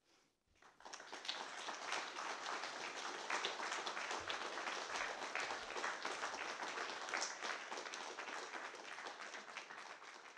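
Audience applauding: dense clapping that swells in about a second in, holds steady, and begins to thin out near the end.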